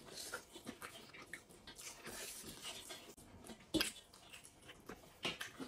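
Quiet eating by hand: soft chewing and small clicks of fingers, rice and goat bones on metal plates, with a sharper click a little before four seconds in and another just after five.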